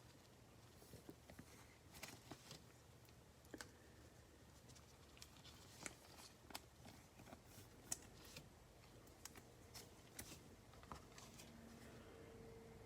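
Near silence with faint, scattered clicks and scratches of trading cards being handled and slid through the fingers as packs are sorted.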